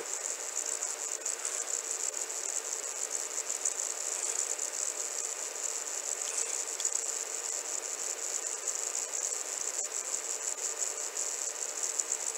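Steady background hiss with a faint low hum, unchanging throughout, with no distinct events.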